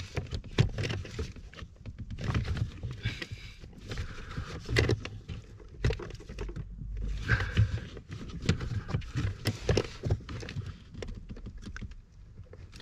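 Rubber coolant hose being worked and forced onto a pipe of a new car heater core. The hose is a tight fit. Irregular knocks, clicks and rubbing of rubber and plastic.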